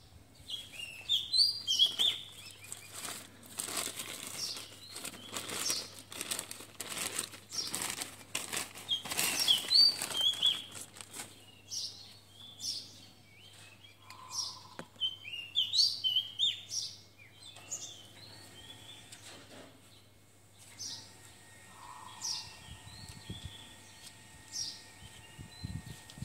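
Plastic bag crinkling and rustling as it is handled and pulled off a potted plant, heaviest in the first ten seconds or so, while small birds chirp in short repeated calls throughout.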